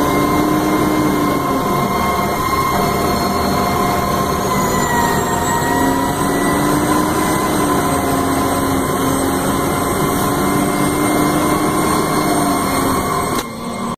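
Fire apparatus under way, heard from inside the cab: the engine runs with steady whining tones that shift slightly in pitch, over continuous road noise. The level drops briefly near the end.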